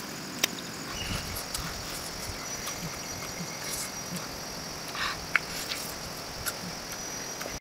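Insects droning steadily in a high, even tone, with scattered small clicks and soft mouth sounds of someone tearing and chewing cooked chicken.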